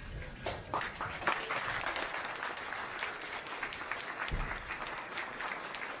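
Audience applauding, many hands clapping in a steady, dense patter that sets in abruptly. A single dull low thump comes a little past four seconds in.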